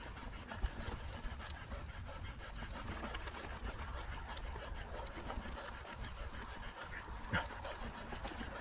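A mountain biker breathing hard while riding, over the steady rumble of tyres and wind on a dirt trail, with a few sharp clicks and knocks from the bike.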